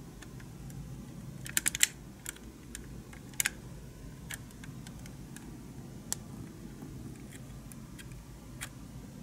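Small sharp clicks and taps as wheels are pressed onto the axles of a scale model Porsche 918 Spyder: a quick run of clicks about a second and a half in, then single clicks every second or two, over a steady low hum.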